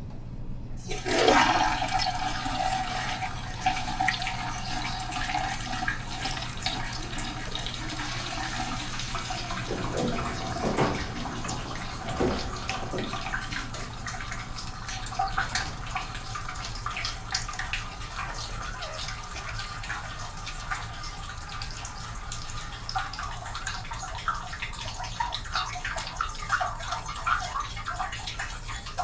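Toilet flushing in a restroom: a sudden rush of water about a second in, then a long run of rushing, hissing water that stops just before the end. A steady whine sounds under the water for the first several seconds.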